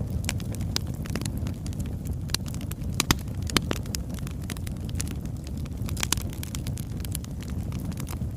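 Birchwood fire burning: a steady low rumble of flames under frequent sharp crackles and pops, a few louder pops about three, three and a half and six seconds in.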